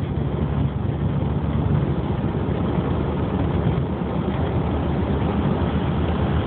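2005 Dodge Neon's engine running, a steady low drone with no clear change in pitch.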